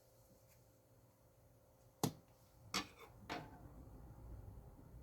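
Tarot cards being handled: three sharp clicks about two seconds in, then a faint low rustle.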